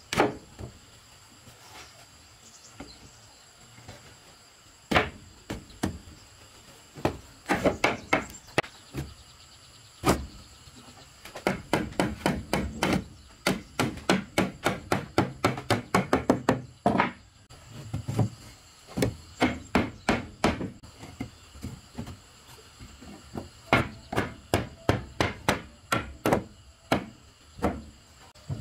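Hammer striking wood in quick runs of blows, about three a second, with short pauses between runs: boards being hammered onto a wooden house wall.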